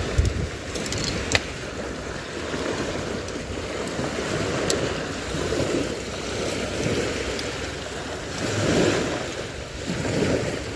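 Steady wash of water and wind with slow swells in loudness, and a few faint clicks.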